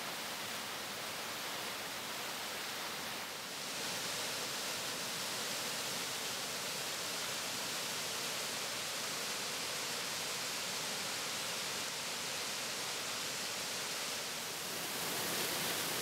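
Waterfall and stream water rushing steadily over rocks, a continuous hiss of falling and tumbling water. It grows slightly louder about four seconds in and again near the end.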